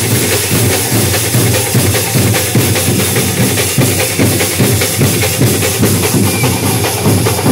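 Loud drum-led music with a fast, steady beat.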